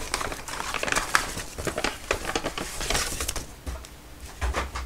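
Paper takeout bag rustling and crinkling as food is unpacked from it: a run of irregular crackles, with a dull bump near the end.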